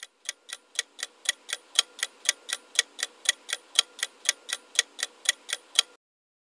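Quiz countdown timer sound effect: a clock ticking evenly, about four ticks a second, stopping abruptly about six seconds in.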